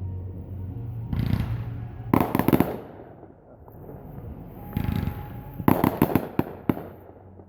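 Fireworks display: two deep booms of shells bursting, each followed about a second later by a quick run of sharp crackling reports.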